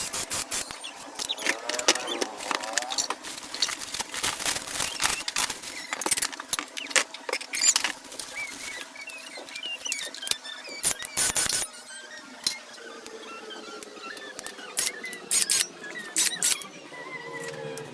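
Handling noise from unpacking: irregular clicks, rustles and small squeaks of packaging and plastic parts being moved and opened.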